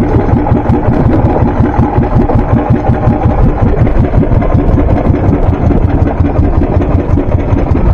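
Small boat engine running steadily at a constant speed, with a fast, even low throb and no change in pace.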